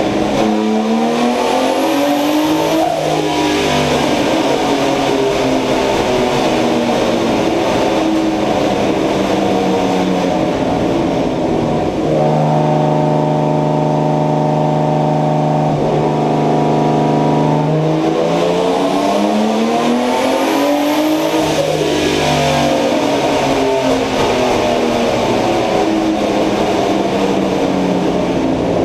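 Turbocharged BMW M50B25 2.5-litre straight-six in an E30, running with a misfire. The revs rise and fall several times and are held steady for a few seconds in the middle.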